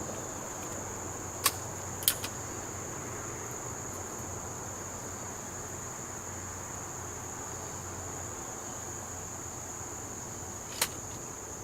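Crickets trilling steadily at a high pitch, broken by sharp cracks: one about a second and a half in, a double crack half a second later, and another near the end.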